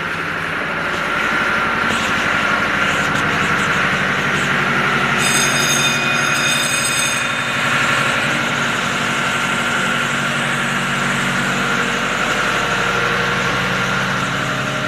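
Tugboat's diesel engine running steadily, a loud even drone heard inside the hull, growing a little louder about a second in. A brief high whine sounds about five seconds in and lasts about two seconds.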